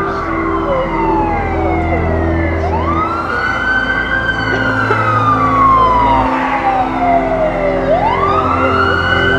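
A wailing siren that sweeps up quickly and then falls slowly for about five seconds, twice, over held low synthesizer chords.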